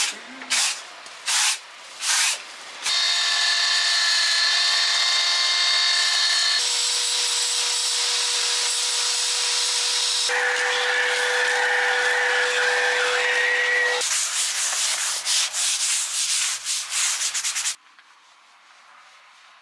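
Tool work on the cement joints of natural-stone paving, in short cut-together clips: a few scraping strokes, then power tools running steadily with a whine through several abruptly changing clips, then quick rough scraping strokes. It drops to a low background about two seconds before the end.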